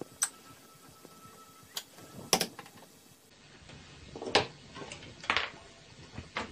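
Scattered knocks and clatters of a CRT TV's circuit boards being handled and shifted on the bench: about six sharp knocks a second or so apart, the loudest a little past two seconds in and again midway.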